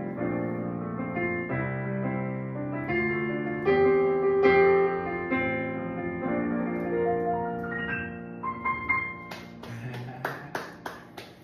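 Electronic keyboard playing slow, sustained piano chords as the song ends, followed near the end by a quick run of about eight hand claps.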